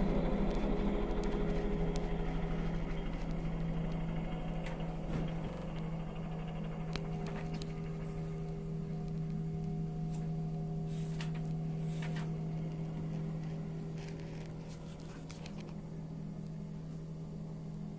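Bell helicopter moving away after takeoff, its steady engine and rotor hum slowly fading, with a few faint clicks.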